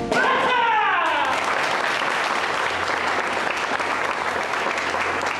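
Small audience applauding a successful taekwondo board break, opened by a brief shout that falls in pitch.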